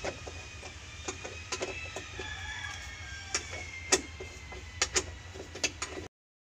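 Irregular sharp metallic clicks and taps of a hand tool working on a bolt at the base of a van's pedal and shifter assembly, with birds calling faintly in the background. The sound cuts off shortly before the end.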